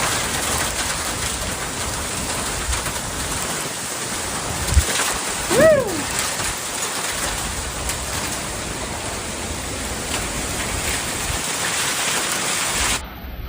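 Heavy rain pouring down in a steady hiss, with a single short call that rises and falls in pitch about halfway through. The rain cuts off abruptly just before the end.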